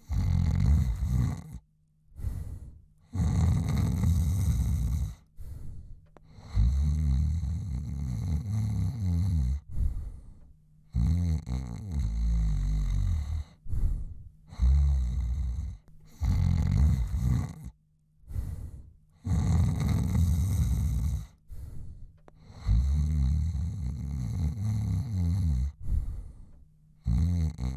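A man snoring in low, regular snores, a long snore and then a shorter one, repeating every few seconds with brief silent gaps between breaths.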